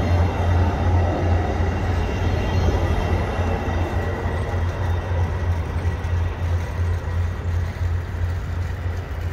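VIA Rail LRC passenger cars rolling past on the rails as the train pulls out of the station, a steady low rumble of wheels and running gear. The rumble eases after the last car goes by about four seconds in and the train draws away.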